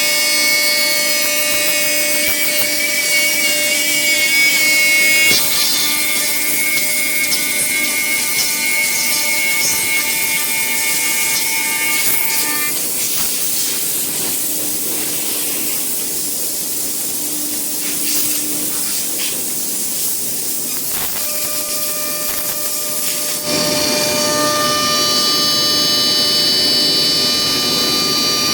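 A 5-axis CNC router's spindle cutting wood: a steady high whine over cutting noise. The pitch of the whine changes abruptly several times.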